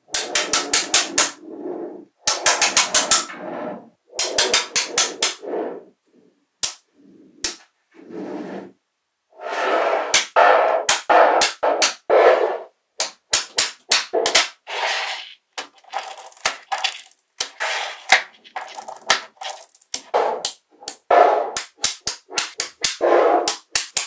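Small magnetic balls clicking and clattering as they snap together, in bursts of quick sharp clicks with short silences between.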